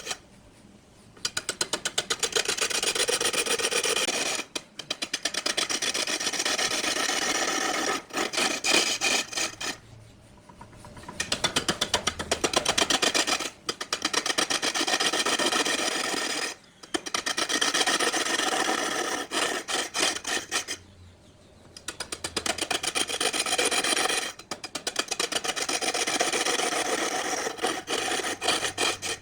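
Turning tool cutting a wood block spinning on a lathe. The cutting comes in passes of a few seconds, each separated by a brief pause, with a rapid ticking chatter running through each pass.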